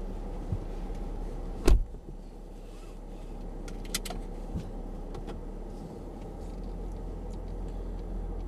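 Mercedes-Benz GL-Class 4x4 running at idle, a steady low hum heard from inside the cabin. A single loud sharp thump comes just under two seconds in, and a few light clicks follow around four seconds.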